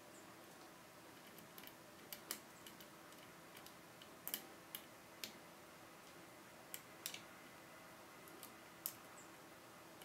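Sparse, irregular small metallic clicks from a lock pick and tension tool working the pins of a Kaba Gege pin-tumbler cylinder, about a dozen over the stretch against near silence.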